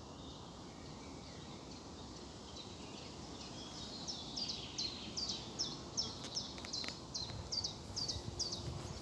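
A songbird singing a quick series of short, high, down-slurred notes, a few each second, getting louder from about halfway through, over faint woodland background noise.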